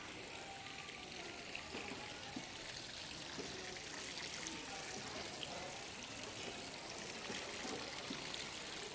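Fountain jets splashing and trickling steadily into an indoor garden pond.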